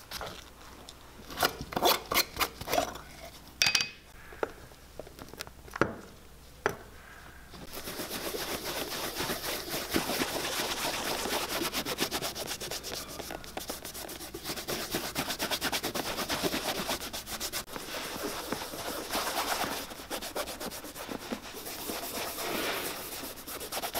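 A few sharp clicks and knocks in the first seven seconds or so, then from about eight seconds in a steady rubbing of a cloth over the elephant-hide leather of a cowboy boot, working in a leather balm.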